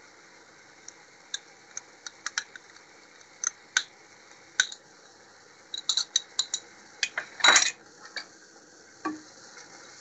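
Metal spoon clinking and scraping against a bowl and a pan as a poppy-seed and cashew paste is spooned in, a string of sharp clinks with a louder clatter about seven and a half seconds in. A wooden spatula knocks in the pan near the end, over a faint sizzle from the frying vegetables.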